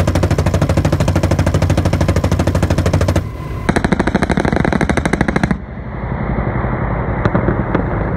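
Sustained automatic gunfire: a rapid, even string of shots in long bursts, broken briefly about three seconds in. Later it turns duller and lower, with a couple of single sharp cracks near the end.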